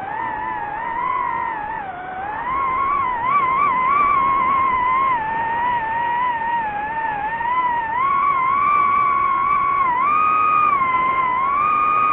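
DJI FPV drone's motors and propellers whining in flight, the pitch rising and falling with throttle.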